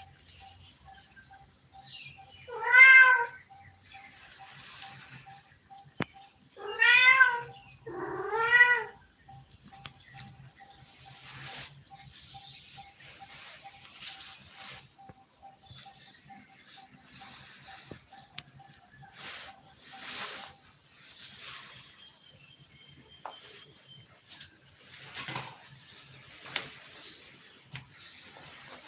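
A domestic cat meows three times in the first nine seconds, each meow rising and then falling in pitch. Under it runs a steady high chirring of crickets.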